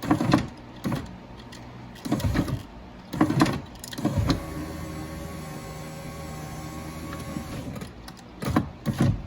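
A Dodge Grand Caravan's front-door power window motor and regulator running the glass, a steady hum for several seconds with short knocks before and after. The motor had worked loose and has just been tightened back down, so it still makes some noise but no longer crunches.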